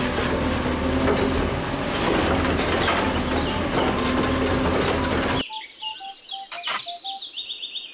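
Automated side-loader garbage truck running, its engine and hydraulic arm working as the arm lifts and tips a wheelie bin, with a steady low hum under a mechanical din. About five and a half seconds in it cuts off suddenly, and a short run of chirping, beeping transition sound effects follows.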